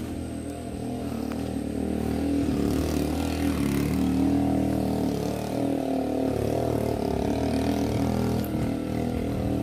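A vehicle engine running steadily, getting louder about two seconds in and then holding.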